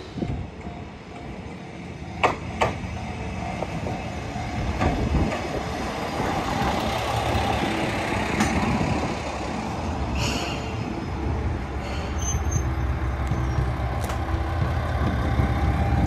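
Two-car Isumi Railway diesel railcar train running into a station platform, its wheels rumbling on the rails, with two sharp clicks a couple of seconds in. From about two-thirds of the way through, a steadier low diesel engine hum takes over as the train draws up at the platform.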